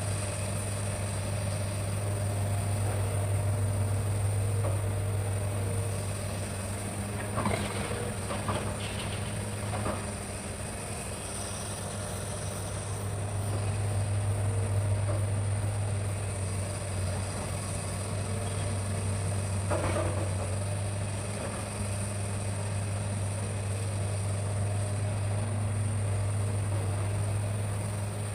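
Hitachi hydraulic excavator's diesel engine running steadily under work, with a few short knocks and cracks about a quarter of the way through and again past the middle.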